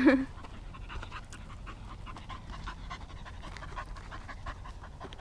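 A dog panting fast and rhythmically as it runs after a ball, after a brief shout at the very start.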